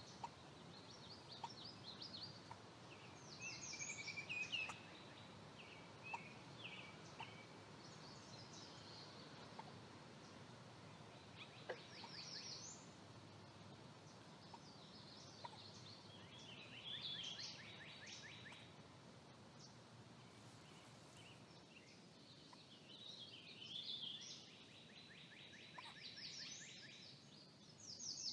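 Mexican gray wolf pup hiccupping: faint short ticks every second or two. Over them, songbirds sing in repeated high phrases and rapid trills.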